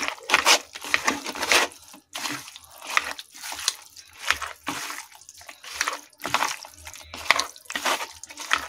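A bare hand squishing and mixing raw goat liver pieces with spice powders in a plastic bowl: irregular wet squelches, one or two a second.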